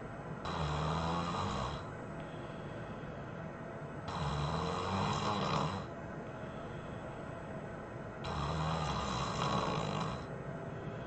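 A sleeping person snoring loudly, three heavy snores about four seconds apart, with a steady hiss between them.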